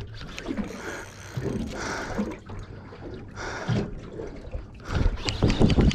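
Water lapping and sloshing against the hull of a small boat at sea, with rough buffeting noise that grows louder near the end.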